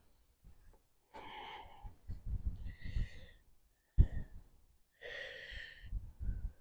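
Several short, breathy, wheezy exhalations from a person, with pauses between them and a sharp click about four seconds in.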